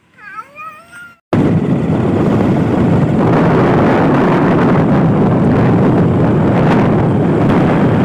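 A cat meows briefly. About a second in, it cuts abruptly to a loud, steady rush of wind and road noise on the microphone of a moving vehicle.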